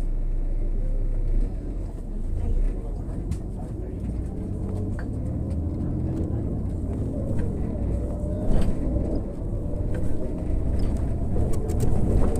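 Irisbus Crealis 18 articulated bus running on its natural-gas engine, a steady low rumble of engine and road. Over the second half a faint whine rises in pitch as the bus picks up speed.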